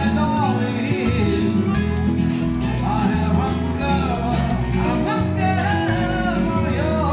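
Live music: a singer with a band over a steady bass line.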